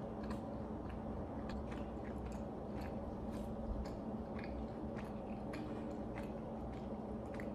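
A person chewing ravioli, with small irregular clicks of eating, over a steady low hum.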